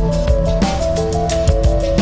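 Background music: an electronic track with held melody notes over a steady drum beat.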